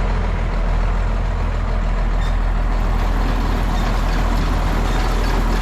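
Tractor engine running steadily while driving the hay baler, with the baler's mechanism and drive chains running. The chains are dry and in need of grease.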